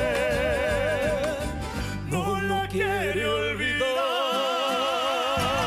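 Male voices singing a held note with strong vibrato over an accordion band. About two seconds in the melody moves through a few quick pitch steps. Near four seconds in the band's bass drops out and a higher note is held with wide vibrato.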